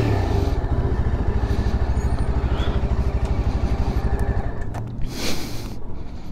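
Yezdi Adventure's 334 cc single-cylinder engine idling with a steady low beat. About five seconds in there is a short rustling burst.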